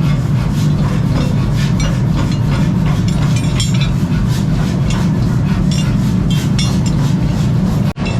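Workshop machinery running with a steady low hum and frequent irregular clicks and knocks. The sound drops out for an instant near the end.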